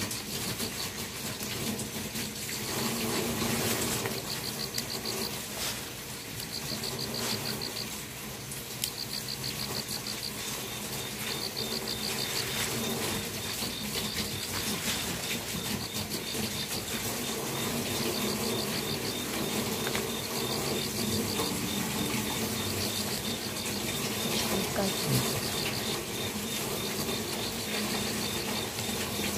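Crickets chirping in short pulsed bursts every one and a half to two seconds, with a second insect's steady high trill joining about ten seconds in, over the rustling and snapping of green vegetable stems being peeled by hand.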